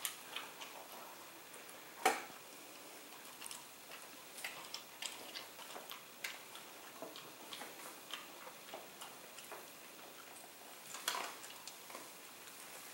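Cavalier King Charles Spaniel eating dry kibble off a tile floor: scattered, irregular crisp clicks and crunches, with a louder click about two seconds in and another near the end.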